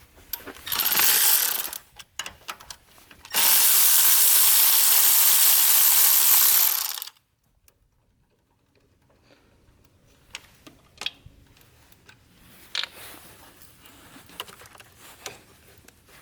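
Ratchet with a 10 mm socket being worked on a fastener: a short burst of fast ratcheting about a second in, then a longer run of fast ratcheting lasting nearly four seconds that stops abruptly. Light clicks and clinks of metal parts being handled follow.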